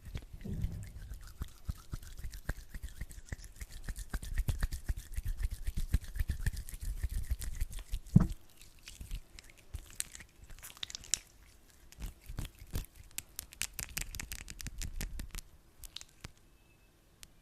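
Hands rubbing sticky aloe vera gel close to the microphone, giving a dense, irregular run of fine sticky clicks. There is one sharp knock about eight seconds in, and the sound thins out near the end.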